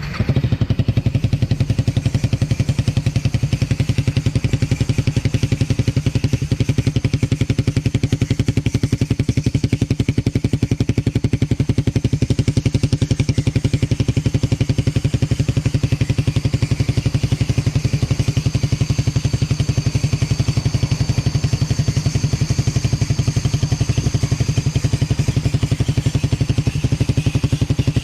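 A Suzuki Raider 150 Fi's single-cylinder four-stroke engine idling steadily through an aftermarket Akrapovič-style canister muffler with its silencer fitted.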